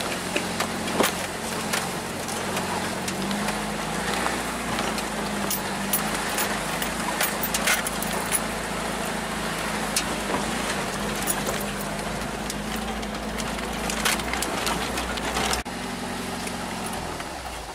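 4x4 truck engine running steadily at low speed, heard from inside the cab, with short knocks and rattles as it crawls over a rocky trail.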